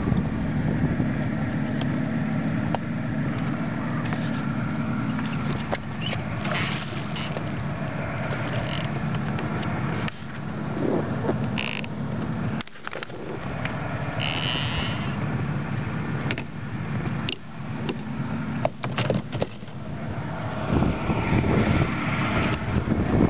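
Mercury 115 hp outboard engine idling steadily, with scattered clicks and knocks from handling on the boat and a brief drop in level about halfway through.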